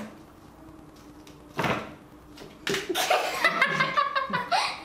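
A single slap or thump about one and a half seconds in, then two girls laughing, the laughter starting a little before three seconds in and growing louder toward the end.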